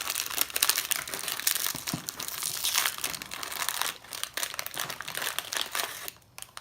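Plastic snack packet of crackers crinkling as it is handled and opened, with a dense, continuous crackle that dies away about six seconds in.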